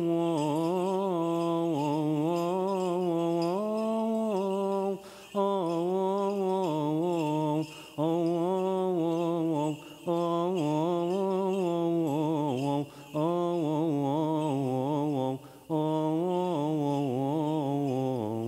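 Male chanting of a slow, melismatic Coptic liturgical hymn: long wavering notes sung in phrases, broken by short pauses for breath about every two or three seconds.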